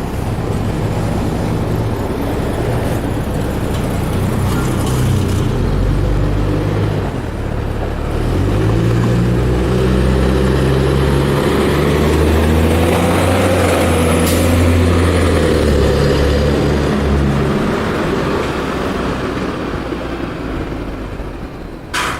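Neoplan AN440 transit bus engine running, its note climbing about eight seconds in as the bus accelerates. It is loudest through the middle, then fades away toward the end.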